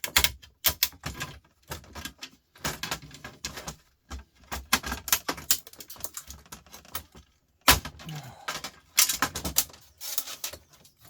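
Irregular clicking and clattering of a hand tool on small metal screws and parts as fasteners are worked out of an old record player, with one sharp knock about two-thirds of the way through.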